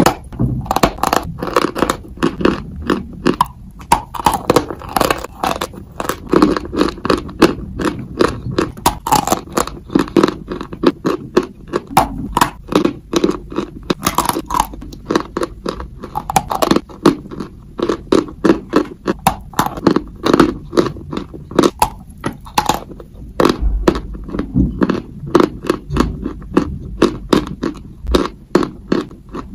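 Biting and chewing a dry, white, powdery block: a steady run of crisp crunches, a few each second.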